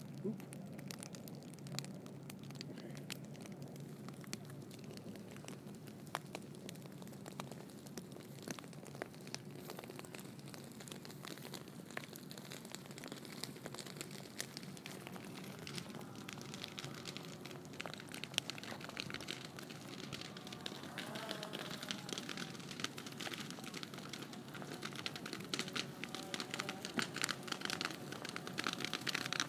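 Faint crackling of burning dry grass, a steady run of small snaps that grows denser and louder near the end, over a low steady hum.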